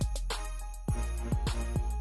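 Background music with an electronic beat: deep bass drum hits that drop in pitch, a quick hi-hat pattern and sustained synth notes.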